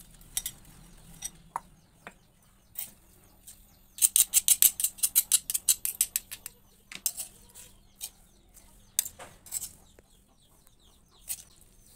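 Kitchen handling sounds of a salad being put together on a stone mortar: a spoon and containers clicking and knocking, with a quick rattling run of about eight clicks a second lasting some two seconds, a few seconds in.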